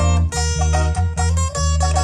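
Live dance music from a band: a plucked-string melody over a strong, evenly pulsing bass line.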